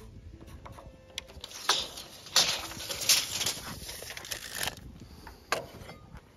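Work handling sounds: a few sharp knocks, the first about two seconds in, amid a few seconds of scraping and rustling, then another sharp click near the end, as lumber and tools are moved about on the sawhorses.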